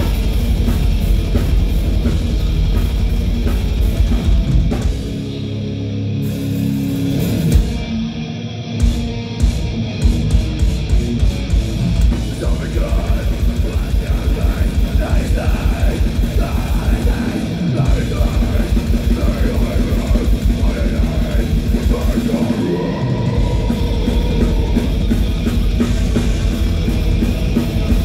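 Old-school death metal played live by a full band: heavily distorted electric guitars, bass and drum kit at a fast pace. The drumming lets up for a few seconds about five seconds in, then the fast beat resumes.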